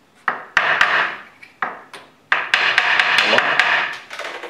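Wooden mallet knocking on an end-grain cutting board blank in an irregular series of sharp knocks, tapping it down to sit flush with the CNC router table.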